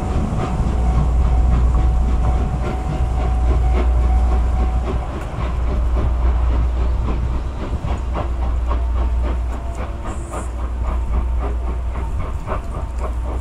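Steam locomotive (the SL Ginga's C58 tank engine) working hard up a steep grade: a run of sharp exhaust chuffs and steam hiss over a steady low rumble.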